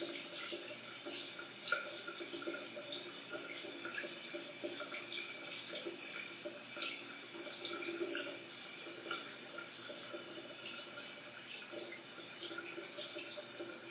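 Locker room shower running steadily, water hissing and spattering onto the floor and toward the drain, with scattered small drips and splashes.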